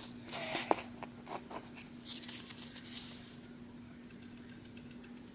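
Handling of cardboard with small clicks and taps, then a marker scratching across cardboard for about a second, over a steady low hum.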